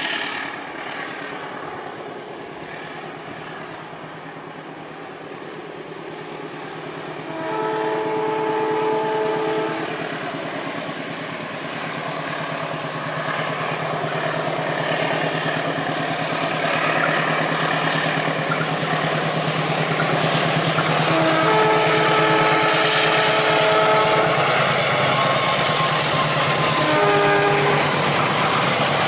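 Diesel-electric locomotive hauling a long passenger train up a steep grade, its engine hum working hard and growing louder as it approaches. The multi-tone horn sounds two long blasts, about 8 and 21 seconds in, then a short toot near the end, over the rising rumble of the train.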